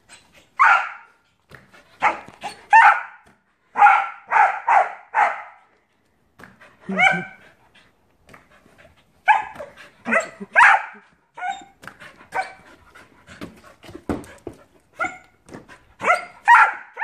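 A dog barking repeatedly at a balloon it is jumping for, the barks coming singly and in quick runs of two to four.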